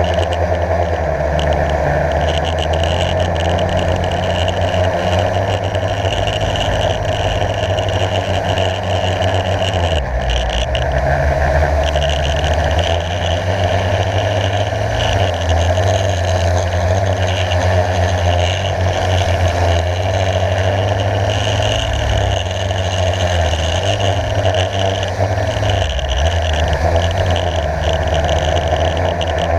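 Blade 350 QX quadcopter's brushless motors and propellers running steadily, heard from on board: a loud, constant hum that shifts in pitch about ten seconds in and again near the end.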